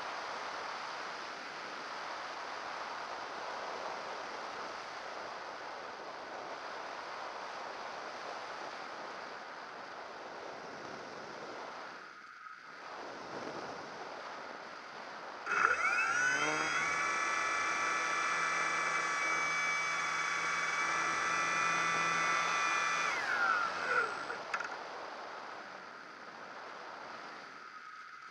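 Airflow rushing over a radio-controlled model plane in flight, heard from a camera on its nose. About halfway through, the plane's electric motor spins up with a rising whine, runs steadily for about seven seconds, then winds down, and the rush of air returns.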